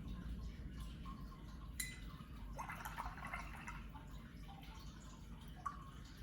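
Paintbrush being rinsed in a jar of water between watercolour swatches: a sharp tick about two seconds in, a brief swishing splash around three seconds, and a faint tick near the end, all quiet.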